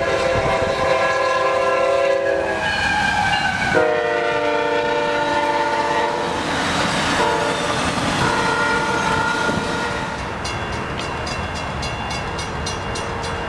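Multi-chime locomotive air horn sounding a series of long blasts, one of them falling in pitch as the train passes. From about ten seconds in, a grade-crossing bell rings with rapid, even strokes.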